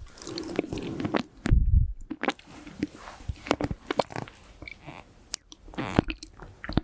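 Close-miked mouth sounds of a hard lollipop candy being sucked and knocked against the teeth: sharp clicks and wet smacks at irregular moments. A puff of nose breath hits the microphone as a low rumble about one and a half seconds in.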